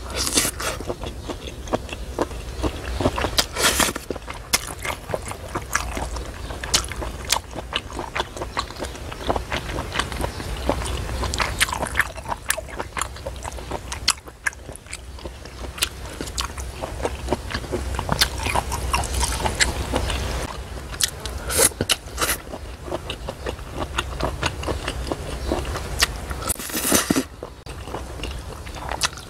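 Close-miked eating of soy-sauce bibim noodles with sea snail meat: steady chewing and biting, with a few short slurps and wooden chopsticks clicking and scraping on the plate.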